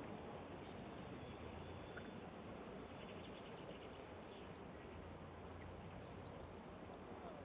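Steady faint outdoor background noise with a few faint high chirps.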